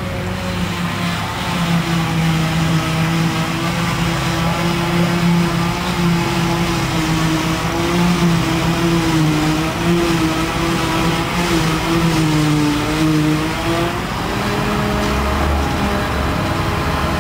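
Claas self-propelled forage harvester working under load while chopping grass, with a tractor running alongside: a loud, steady engine drone whose pitch wavers slightly, changing to a different note about fourteen seconds in.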